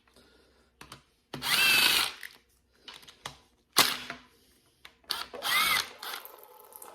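A handheld power tool spinning out a bolt in two short whirring runs, about a second in and about five seconds in, with a sharp click between them.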